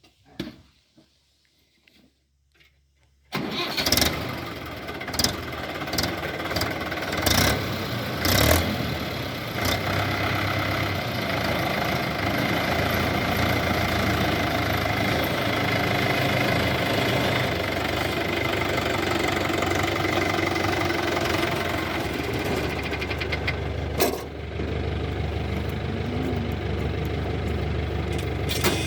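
Near silence, then about three seconds in a heavy diesel engine comes in abruptly and runs steadily, with a few sharp knocks in its first seconds and another a little before the end.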